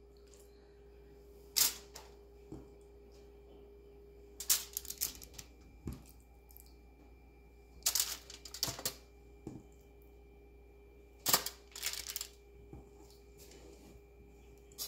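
Scattered sharp clicks and short bursts of light clatter as marinated chicken pieces are laid onto a baking tray, over a faint steady hum.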